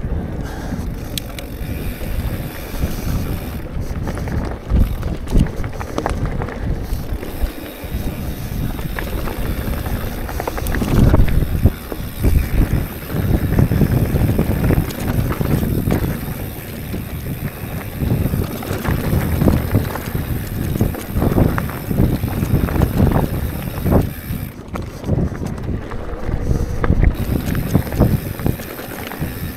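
Wind rumbling over the microphone of a camera on a mountain bike riding a dirt trail, with frequent knocks and rattles from the bike over rough ground.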